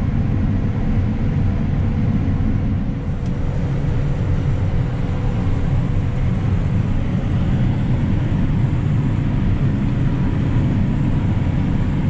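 John Deere combine running steadily while harvesting corn, heard from inside the cab: an even low drone with a faint steady whine over it.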